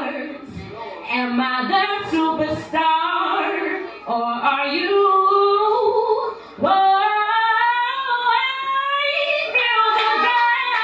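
A woman singing solo, with long held notes that bend and slide in pitch.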